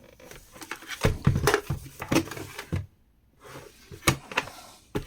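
Clicks, knocks and light thuds of a small plastic mini fridge being handled and moved about, with a short quiet gap about three seconds in.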